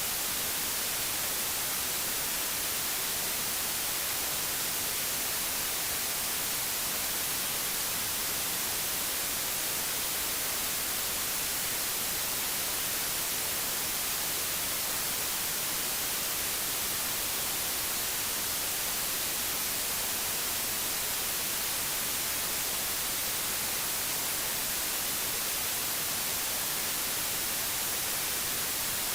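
Pure digital white noise: a steady, even, full-spectrum hiss with no changes.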